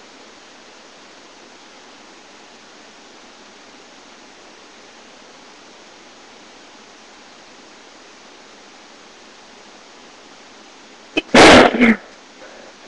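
A person sneezes once into a handkerchief near the end, a short catch followed by a loud burst, over a steady hiss from a low-quality webcam microphone.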